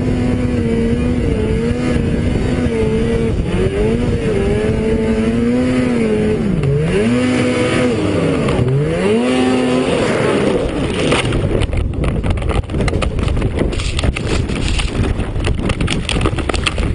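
Snowmobile engine running, its pitch wavering up and down with the throttle and dropping sharply twice before climbing back. After about ten seconds the engine tone gives way to a loud rough rushing noise with many crackles.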